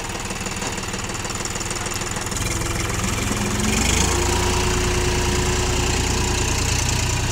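John Deere 5050 D tractor's three-cylinder diesel engine running under load as the tractor drives through deep mud, the engine note getting heavier and louder about four seconds in.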